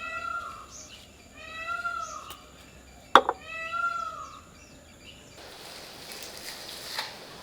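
An animal calling three times, each call a short cry that rises and falls in pitch, with a sharp click about three seconds in. The calls stop after about five seconds and a steady hiss follows.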